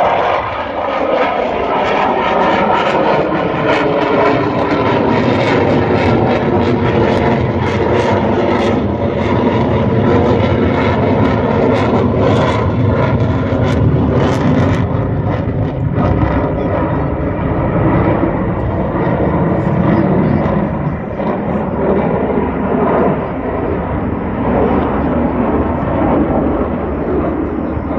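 Loud jet noise from the twin engines of an F/A-18 fighter flying a display. The pitch falls over the first couple of seconds as it passes, there is a crackling edge through the middle stretch, and it eases a little after about twenty seconds.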